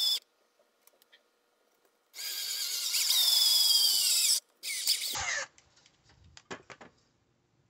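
Cordless drill boring a larger screw hole through a metal mirror-clip rail, where a pilot hole was drilled first. It runs in short bursts with a high whine: one run stops just after the start, a longer run lasts about two seconds, and a brief last burst falls in pitch as the motor winds down. A few light clicks follow.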